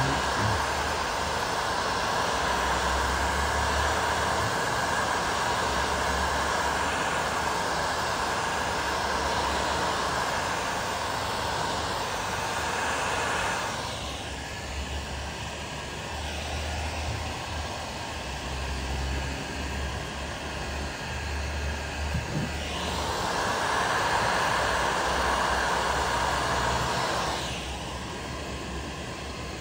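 Heat gun blowing hot air onto a car's interior door trim panel, a steady rushing hum from its fan and airflow. The noise is loudest for the first half, drops back at about fourteen seconds, and swells again for a few seconds near the end.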